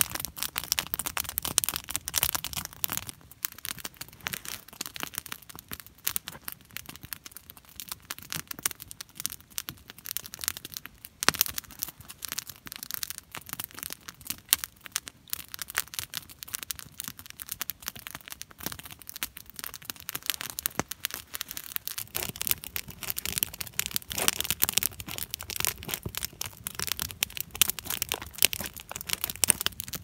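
Campfire crackling, with many irregular sharp pops and snaps of burning wood throughout.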